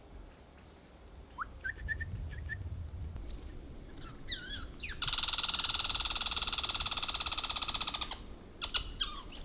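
American red squirrel calling: a few short chirps, then about halfway through a loud, very fast rattling chatter lasting about three seconds, with more chirps near the end.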